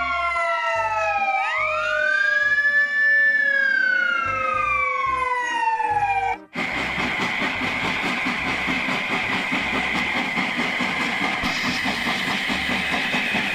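Siren-like electronic wailing made of several tones that slowly fall in pitch, with one sweeping up and back down, cutting off abruptly after about six seconds. A steady hiss-like noise takes over for the rest.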